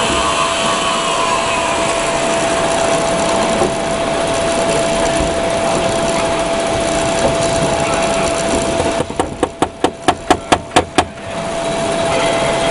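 Steady machine noise with a constant whine. A little after two-thirds of the way through, the background drops away for about two seconds, and a quick run of about ten sharp clicks comes, roughly five a second.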